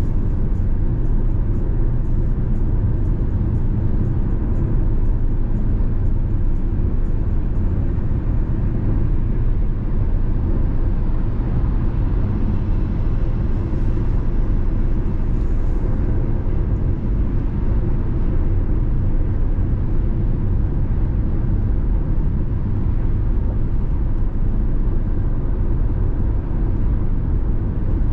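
Car driving at highway speed: a steady low rumble of tyres on the road and the engine.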